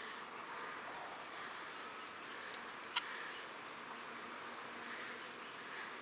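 Insects buzzing and chirring steadily, with one short click about three seconds in.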